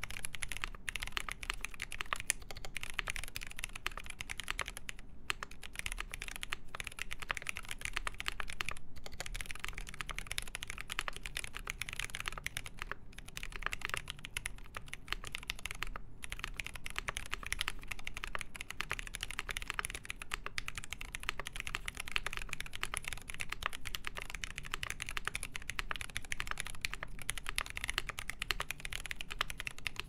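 Continuous typing on a KBD8X MKII mechanical keyboard with lubed Zealio v2 tactile switches, a full brass plate, case foam and GMK keycaps: a dense, steady stream of key clicks, with a few brief pauses.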